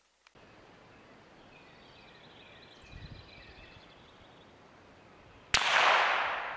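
Outdoor ambience with faint chirping, then about five and a half seconds in a single loud rifle shot at a Tannerite target, whose sound fades out over about a second.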